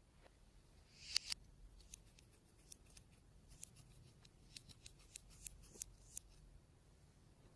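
Faint small clicks and crackles, with a louder double click about a second in and scattered sharp ticks after it, typical of slime being handled.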